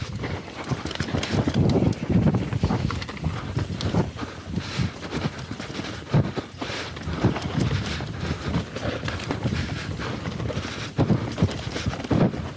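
Mountain bike riding over a rough dirt trail: an irregular run of knocks and rattles as it rolls over bumps, roots and rocks, over a steady rush of wind noise.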